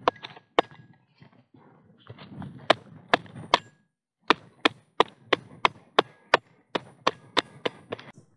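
Hammer blows on the back of an axe head wedged in a thick log, driving it in to split the log open: a rapid series of sharp strikes, a few followed by a short metallic ring. There is a brief pause about four seconds in, and then the strikes come about two and a half a second.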